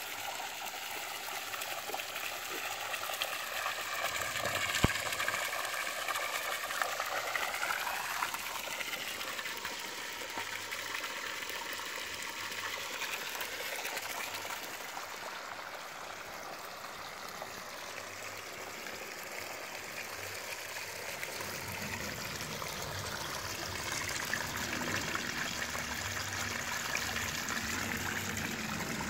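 Water from a homemade backyard water feature falling steadily from a spout and splashing into a small pond basin, its tone shifting slowly now and then.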